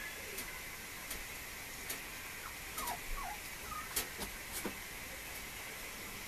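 Mame shiba puppy giving a few short, high whimpering squeaks that drop in pitch, about halfway through, among scattered light clicks and taps.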